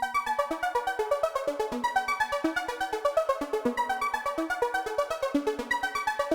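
Electronic background music: synthesizer notes over a fast, even pulse.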